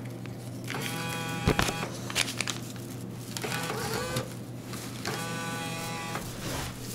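Vending machine bill acceptor pulling in two dollar bills: a short motor whine about a second in and a second one about five seconds in, over the machine's steady low hum.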